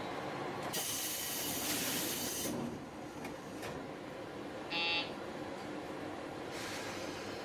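JR Shikoku 1000 series diesel railcar standing at a platform with its engine idling in a steady hum. A hiss of air comes about a second in, lasting nearly two seconds, and again near the end. A short electronic beep sounds about five seconds in.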